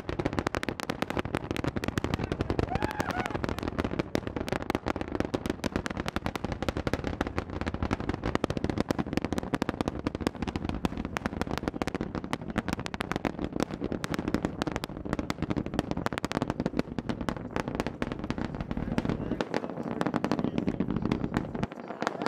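Rocket engine noise from Starship Super Heavy's 33 Raptor engines heard from far away: a dense, continuous crackle of sharp pops over a deep rumble. The deep rumble thins out just before the end.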